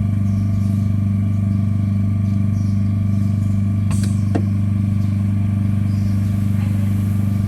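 A phone-screen laminating machine running with a loud, steady electric hum, with two small clicks about four seconds in.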